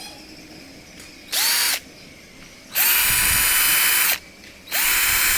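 Black & Decker 12-volt cordless drill running unloaded in forward, in three trigger pulls: a short blip about a second in, then two longer runs. Each time the motor whine rises quickly and then holds a steady pitch.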